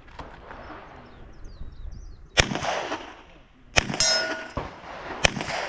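Three handgun shots about a second and a half apart, each with a reverberant tail; right after the second shot a metallic ring hangs on for about half a second.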